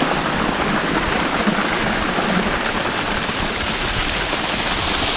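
Steady, unbroken rushing of water outdoors, brightening slightly in the highs about halfway through.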